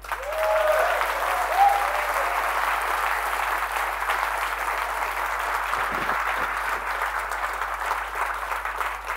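Audience applauding: a full round of clapping in a large hall that sets in at once and slowly tapers off, with a few short cheers in the first couple of seconds.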